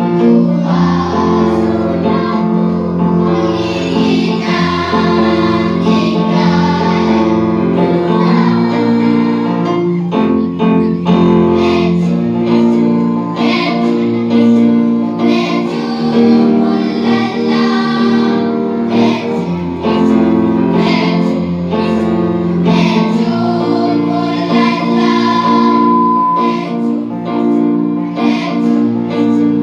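Music with singing over an instrumental backing, sustained notes and a steady bass line.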